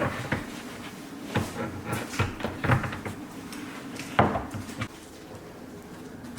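A series of knocks and clunks, about five or six in the first five seconds, the loudest about four seconds in, from hard panels being handled during the final tidy-up.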